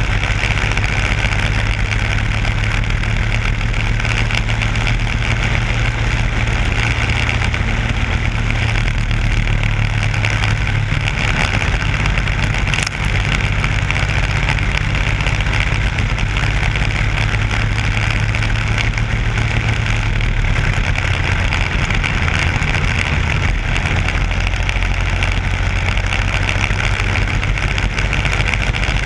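Racing kart's Briggs & Stratton Animal single-cylinder four-stroke engine running steadily at racing speed, heard from onboard with wind rushing over the microphone. A brief sharp knock with a short dip in level a little before halfway.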